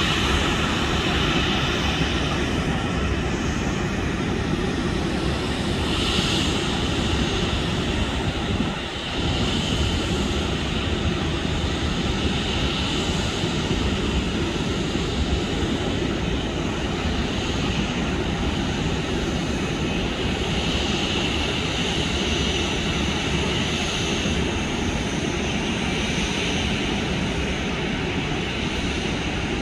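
Steady jet-aircraft noise across an airport apron, a continuous rumble with a whine that swells and fades. The noise drops briefly about nine seconds in.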